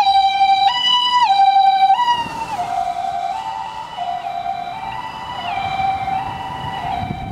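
Japanese ambulance two-tone electronic siren (the 'pee-po' hi-lo call) on a first-generation Toyota HiMedic doctor car, alternating between a high and a low tone about every 0.7 s. About two seconds in the vehicle passes and the siren drops in pitch and gets quieter as it drives away.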